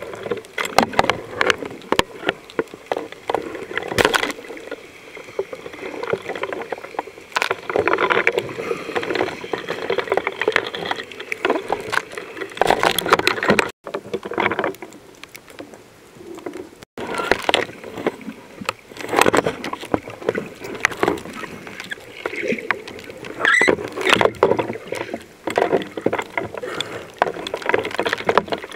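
Muffled, irregular splashing and bubbling of snorkellers swimming, picked up by a camera held underwater, with scattered sharp knocks and clicks.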